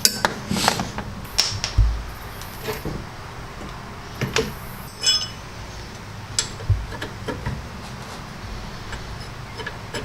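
Scattered sharp metallic clicks and knocks of hand tools working on a brake caliper's mounting bolts, with a brief ringing clink of metal about five seconds in.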